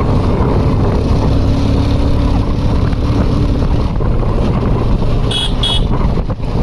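Steady engine and road rumble of a vehicle on the move, with two short high horn beeps about five and a half seconds in.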